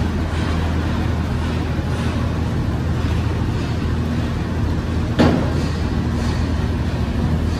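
Street traffic and heavy vehicle engines running steadily beside a construction site, with one sharp bang about five seconds in.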